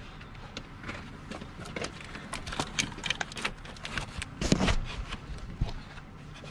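Scattered clicks and clunks of a removed car starter and hand tools being handled, with the heaviest knock about four and a half seconds in.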